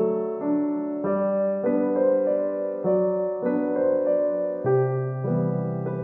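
Background music of soft piano-like keyboard notes, changing about every half second in a steady, gentle pattern.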